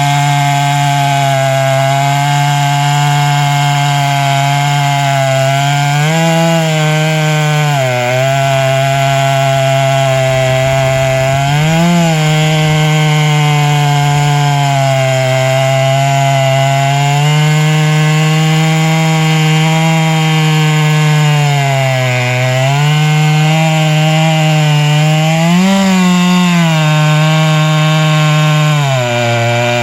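Chainsaw in a chainsaw mill, running at high revs while ripping through a log. Its engine note holds steady, with the pitch dipping and picking up again several times as the cut goes on.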